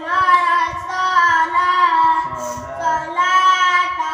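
A child's voice reciting the Quran in a slow melodic chant, holding long drawn-out notes that bend gently in pitch, with a brief break about two seconds in.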